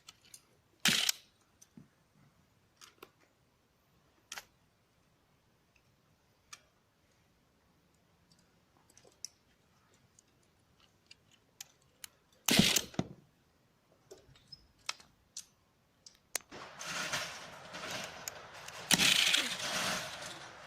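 Plastic clicks and snaps from a Lego rubber band pistol being handled and fired, with two loud snaps, one about a second in and one about two-thirds of the way through. Near the end comes a longer stretch of dense clattering.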